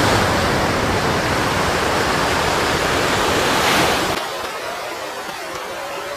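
Sea surf rushing onto a sandy beach, a steady roar of water that swells about three and a half seconds in, then falls away sharply with its low rumble gone.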